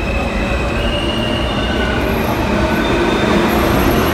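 New York City subway train running along the platform: a loud, steady rumble of wheels on rail with thin, high wheel squeals coming and going.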